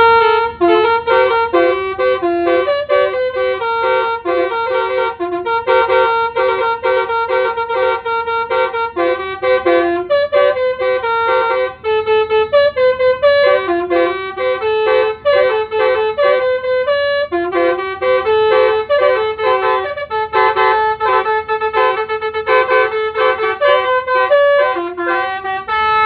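Basuri telolet bus horn played from a push-button controller, its horn trumpets tooting a quick melody of short steady notes, often several pitches together, with a couple of brief pauses.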